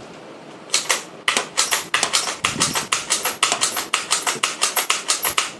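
Gel-and-dart toy blaster firing a rapid string of gel-ball shots, sharp clicks about six a second, starting under a second in and stopping just before the end.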